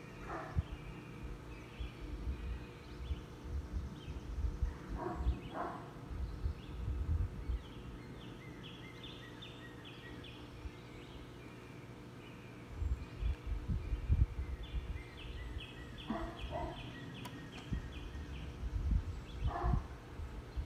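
Birds calling: two runs of short, quickly repeated high notes, and a few brief falling calls in between, over an uneven low rumble on the microphone.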